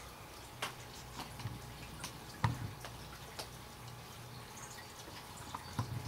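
Water dripping in irregular drops, about a dozen scattered ticks with the loudest about two and a half seconds in, over a faint low hum: rainwater still falling from the trees after a night of rain.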